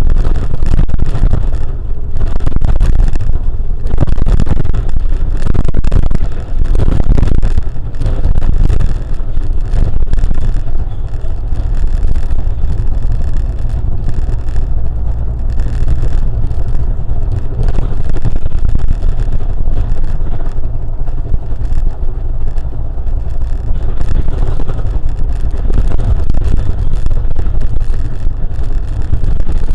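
Vehicle driving along a road: a steady low rumble of road and engine noise with wind buffeting the microphone in uneven gusts.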